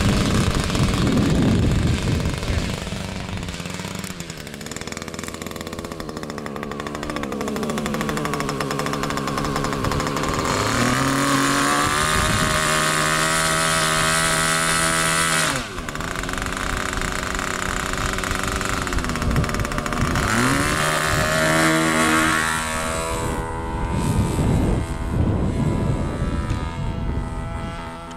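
Super Tigre 90 two-stroke gas engine on a radio-control model airplane running with a rough, rattly note. Its pitch slides down and back up several times, and the sound drops sharply in level about halfway through.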